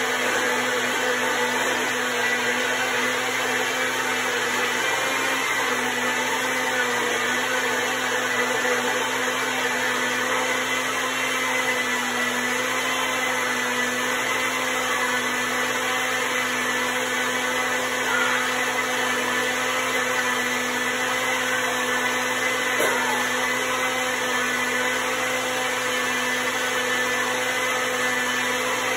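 Electric blender grinder running steadily with a constant motor whine, grinding the sautéed onion, tomato and spice mixture into a paste.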